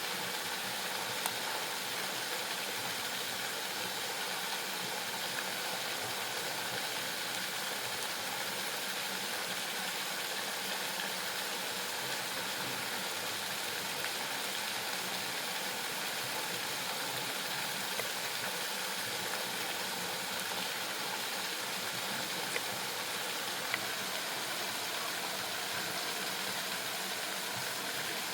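Steady rush of a waterfall, an even roar of falling water that does not change, with a few faint clicks now and then.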